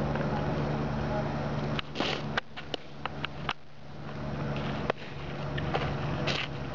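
A steady low hum, with a sharp pop about two seconds in and a few smaller clicks after it, fitting a pitched softball smacking into the catcher's mitt.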